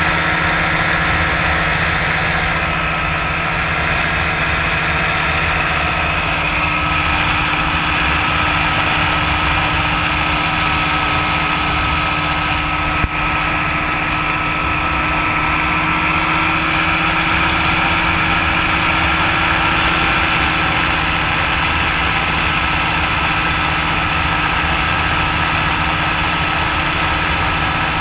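Open microlight aircraft's engine and propeller running steadily in cruise: an even drone with wind rush over the microphone. There is a brief click about halfway through.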